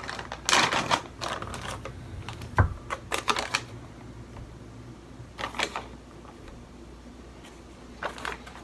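Plastic bag of wheat starch crinkling and rustling in the hands in short spells as it is opened and handled, with one dull knock about two and a half seconds in.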